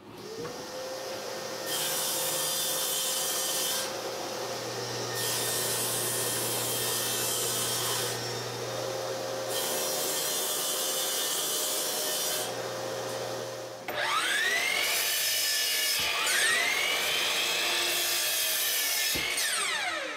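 A table saw running steadily while three plywood pieces are cut in turn, each cut a long hiss over the motor's steady hum. About 14 seconds in, a miter saw takes over: its motor whine rises and falls twice as it cuts through plywood, then winds down at the end.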